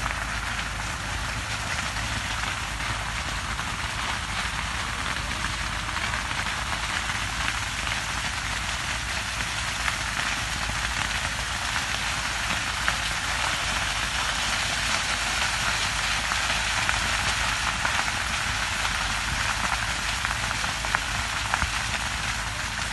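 Sugarcane field burning: a dense, steady crackle of burning cane leaves that sounds like heavy rain, with scattered sharper pops, growing a little louder in the second half.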